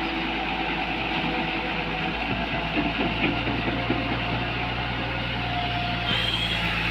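Diesel engine of a Komatsu PC240 hydraulic excavator running steadily, its low note holding steady from about three seconds in.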